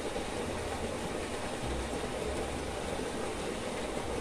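Steady rush of flowing river water, an even noise with no distinct splashes or knocks.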